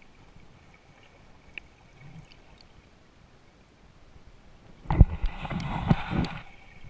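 Water sloshing and gurgling around the camera as it dips below the surface, in loud splashy bursts that begin about five seconds in after a quiet stretch.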